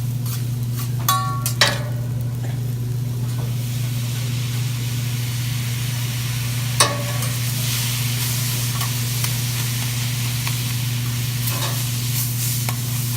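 Food sizzling on a hibachi griddle, the hiss growing after a few seconds, with sharp ringing clinks of a metal spatula twice in the first two seconds and once about halfway, over a steady low hum.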